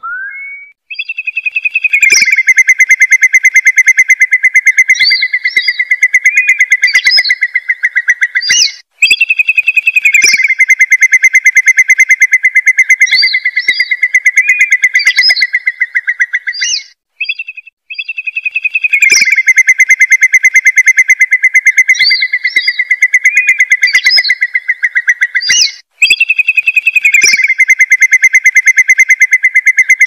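Lure-call recording of curlews (gajahan) played loud and looped: long, very rapid whistled trills on a fairly steady pitch with shorter higher whistles over them, repeating in runs of about eight seconds with brief breaks between them.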